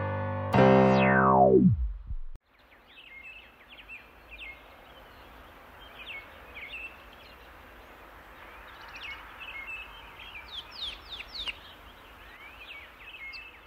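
Electronic music holding a chord, then sliding down steeply in pitch and cutting off about two seconds in. After that, songbirds chirp and trill over a faint, steady hiss of outdoor background noise.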